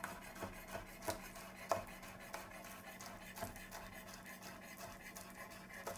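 Kitchen knife thinly slicing scallions on a cutting board: faint, irregular taps of the blade meeting the board, clearest in the first two seconds.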